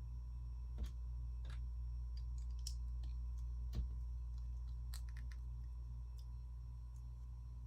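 Plastic Lego pieces being handled and pressed together, giving scattered light clicks over a steady low hum.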